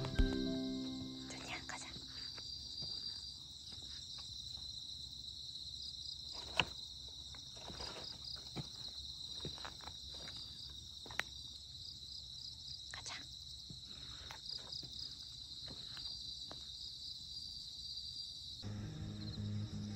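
Crickets chirping steadily in a high, pulsing trill, with a few scattered light taps and footfalls. Background music cuts in near the end.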